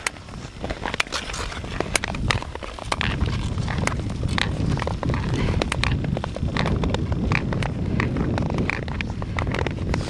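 Sharp clicks and scrapes of ice-skate blades on natural river ice. From about three seconds in, a steady low rumble of wind on the microphone.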